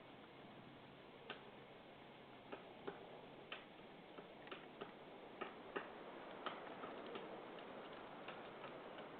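Light, sharp knocks at uneven intervals, about fifteen in all, over a faint steady hiss.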